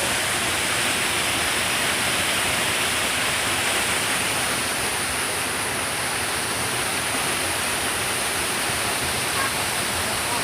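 Steady rushing of river water, an even noise with no change.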